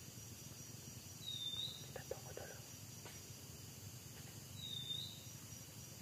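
Tropical forest ambience: a short, high, arched whistled call sounds twice, about three seconds apart, over a steady high-pitched insect drone.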